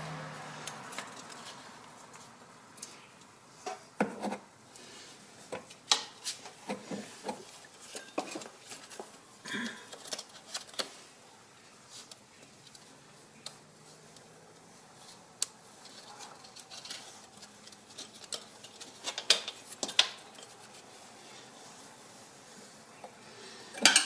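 Scattered light metallic clicks and clinks of hand tools and parts being handled while the alternator drive belt is fitted, with a short cluster of knocks near the end.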